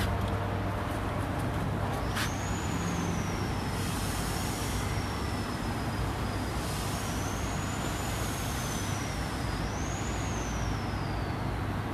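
Steady low hum and mechanical drone of a powered-up 1988 Makino BN2-85-A6 NC milling machine. A thin, high whistle-like tone joins about two seconds in and slowly wavers up and down.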